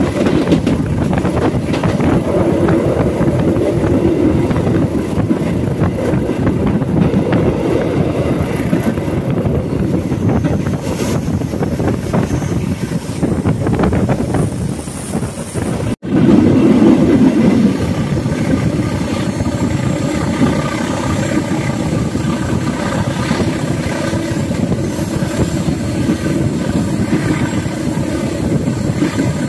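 Diesel locomotive engine working hard as the train climbs a grade, mixed with the steady rush of the moving train. The sound cuts out for an instant about halfway, and a steady whine is heard above the drone after that.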